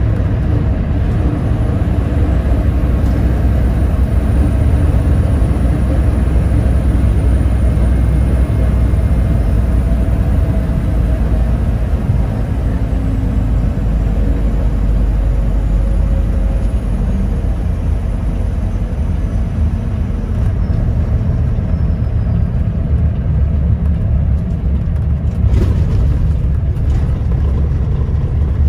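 Kenworth tanker truck driving, heard from inside the cab: a steady low diesel-engine drone mixed with road noise. A couple of faint clicks near the end.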